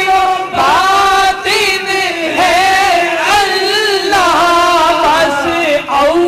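Naat being sung: a voice in a long, flowing devotional melody whose pitch bends and glides from note to note, with a steadier held note sounding beneath it.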